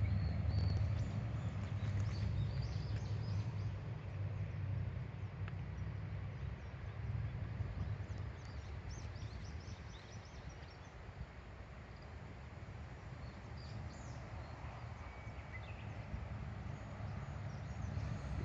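Wind buffeting the smartphone's microphone with a low rumble, over the steady rush of the Kuma River, with small birds chirping high above it, most around the start and again about halfway through.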